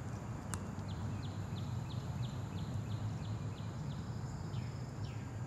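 A bird singing a run of short falling notes, about three a second, then two longer falling notes near the end, over a steady low hum.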